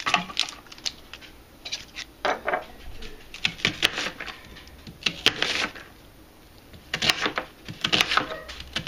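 Chef's knife coarsely chopping a yellow onion on a tiled countertop: irregular crunching cuts with sharp knocks of the blade against the tile.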